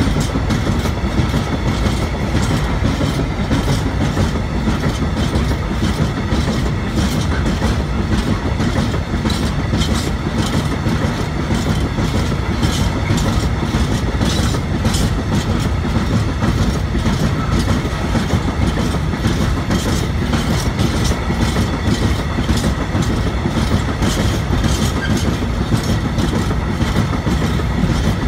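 Loaded freight train of open-top gondola wagons rolling steadily past at close range: a continuous loud rumble of wheels on rail with frequent clicks and clacks as the wheels run over rail joints.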